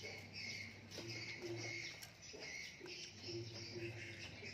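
A dove cooing in short repeated low notes, with small birds chirping higher up at the same time.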